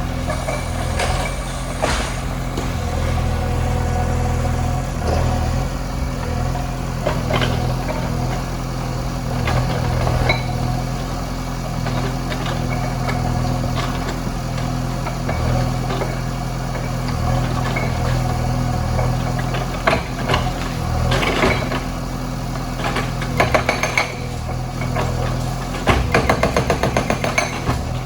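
JCB backhoe loader's diesel engine running steadily, with scattered knocks and clatter. A rapid hammering starts near the end.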